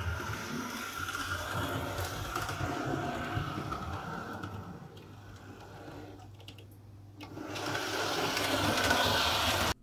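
Model steam locomotive's electric motor whirring as it runs on the track, a noisy, buzzy motor. The sound fades about halfway through, then swells again near the end as the locomotive comes out of a tunnel.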